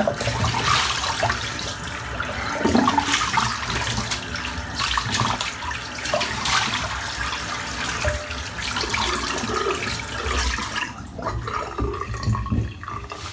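Tap water running into a sink, with irregular splashing as water is scooped and splashed to rinse off after a shave; the running water dies away near the end.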